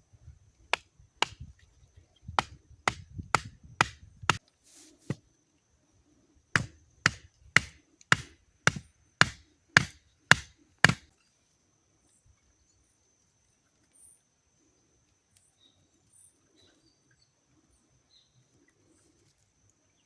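Hatchet chopping wood: sharp strikes in two runs, the second a steady two blows a second, stopping about eleven seconds in. A faint steady high tone runs underneath.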